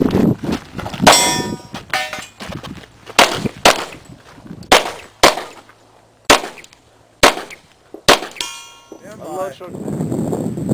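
Glock 22 pistol firing .40 S&W full factory loads, about nine shots spaced roughly half a second to a second apart. Several shots are followed by a metallic ringing, typical of steel targets being hit.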